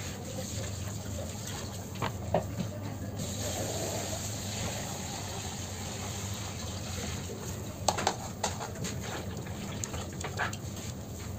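Steady background hum and hiss with a few soft taps and scrapes from gloved hands and a palette knife working a cream-layered sponge cake on a cake board: one about two seconds in, a small cluster near eight seconds, another near ten seconds.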